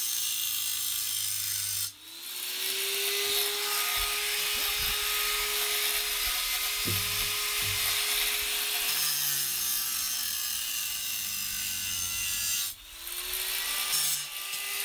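Handheld electric angle grinder grinding the ends of metal screws flush with the floor, its steady motor whine under a harsh grinding hiss. The pitch sags and recovers as the disc bites. The sound cuts out about two seconds in and again near the end, and each time the whine rises as it spins back up.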